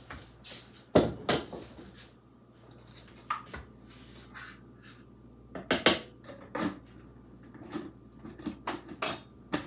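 Kitchenware being handled and set down on a counter: a series of separate clinks and knocks of dishes, containers and utensils, loudest about a second in and again around six seconds.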